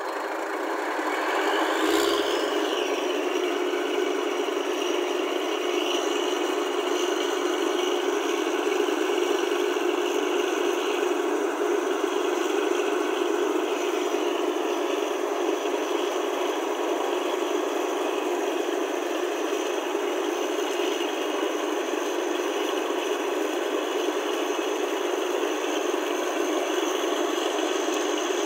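Borewell drilling rig running steadily with a rattle, building up over the first two seconds, with a sharp knock about two seconds in.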